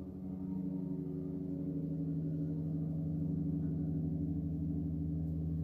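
A steady low hum made of several held tones, swelling slightly over the first couple of seconds and then holding even.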